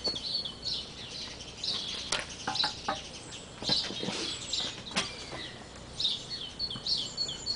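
Small garden birds chirping and singing, with a few sharp knocks and clinks of a steel mounting beam being handled and set down on a wooden table.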